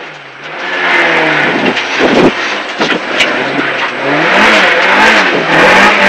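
Opel Ascona rally car's engine, heard from inside the cabin, accelerating hard out of a slow T-junction right turn. It starts quieter, then the revs climb and drop repeatedly as it pulls up through the gears.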